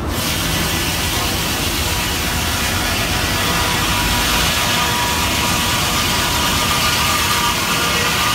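Steam sawmill's large circular head saw and log carriage running: a steady, loud mechanical noise with a thin high whine over a low rumble, setting in suddenly at the start.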